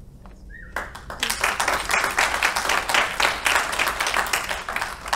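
Audience applauding: many hands clapping, starting about a second in.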